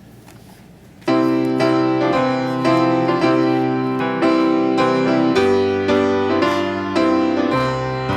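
Keyboard playing the introduction to a hymn before the congregation sings, starting about a second in with sustained chords and a new chord or note every half second or so.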